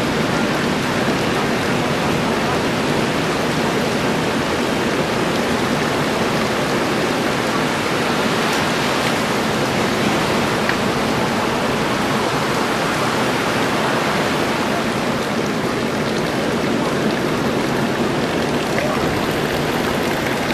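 Steady rushing noise, even across low and high pitches, with no tone or rhythm in it.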